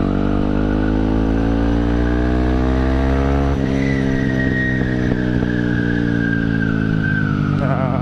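Yamaha WR155 single-cylinder engine through a GP7 Max 4.1 aftermarket exhaust, heard while riding. It pulls with a slowly rising pitch, then about three and a half seconds in the throttle eases and the pitch slowly falls.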